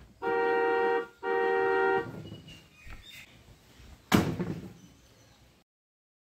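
Electronic steering-wheel horn of a kids' ride-on excavator toy sounding twice: two steady beeps of just under a second each, one right after the other. A single sharp knock follows about four seconds in.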